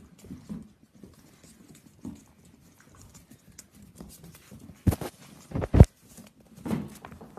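Puppies' paws pattering lightly on a hard floor. About five seconds in come three loud knocks as a puppy bumps against the phone filming at floor level.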